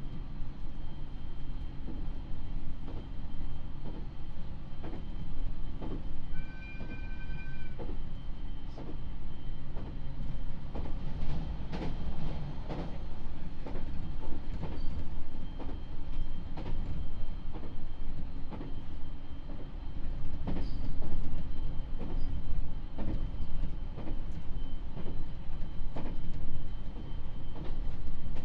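Running sound of a JR East 701 series electric train heard from inside the carriage: a steady low rumble with the wheels clicking over rail joints, the clicks coming closer together from about eleven seconds in. A short high two-pitch tone sounds briefly about six and a half seconds in.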